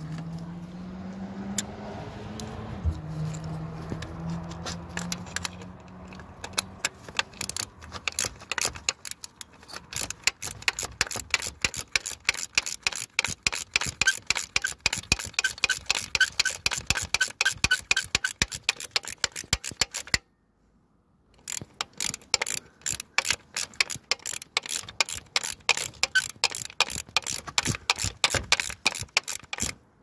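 Ratchet wrench clicking rapidly as it drives in the retaining screw of a new crankshaft position sensor, in long runs with a brief break just past the middle. A low humming tone comes first, for the opening few seconds.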